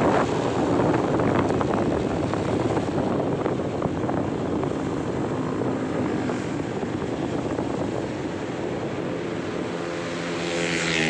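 Steady engine and road-wind noise from a vehicle moving along a road, easing a little as it slows. Near the end a pitched engine hum rises and swells.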